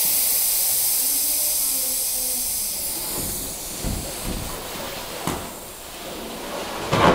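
Air hissing out of a bicycle tyre's valve as the tyre is deflated, slowly fading as the pressure drops. There are a few soft handling knocks in the middle and a short louder rustle near the end.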